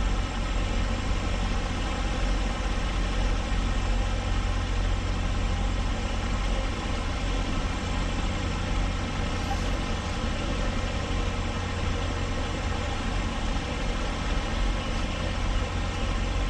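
Semi-truck diesel engine idling steadily, a constant low drone with no revving, heard from a truck cab.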